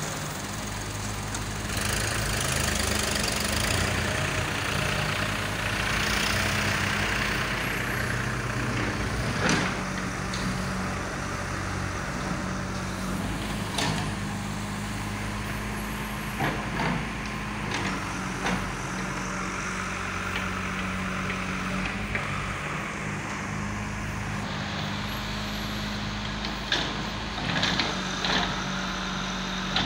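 JCB 3DX backhoe loader's diesel engine running steadily under load as the backhoe digs and loads soil, working harder for several seconds near the start. Sharp knocks now and then as the bucket strikes the soil and stones.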